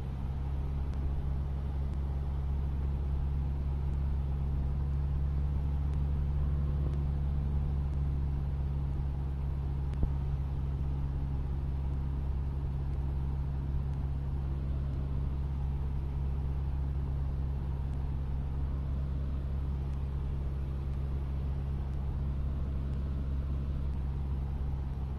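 Cessna 152's four-cylinder piston engine and propeller running steadily at constant power, a low even drone. A single faint click about ten seconds in.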